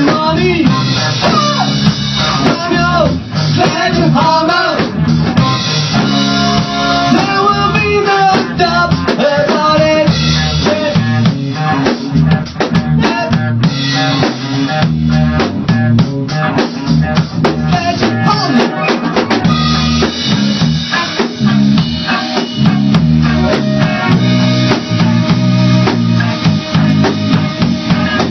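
A band playing a loud rock song: a drum kit with kick, snare and rimshots keeping a steady beat under guitar.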